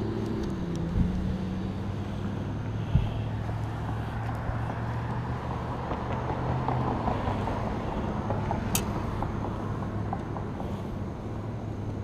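Road traffic on a bridge: vehicle engines humming steadily, with a swell of passing-car noise about halfway through.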